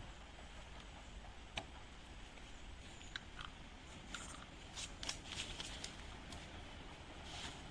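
Quiet background with scattered light clicks and short bursts of rustling; no chainsaw running.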